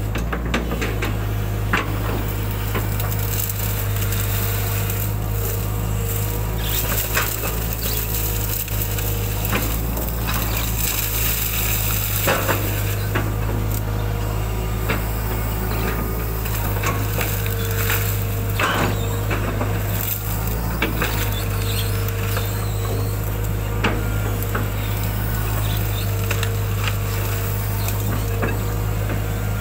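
Hitachi excavator's diesel engine running steadily under load, heard from the operator's cab, with a whine that comes and goes. Scattered knocks and cracks come from the bucket scraping mud and snapping brush in a ditch.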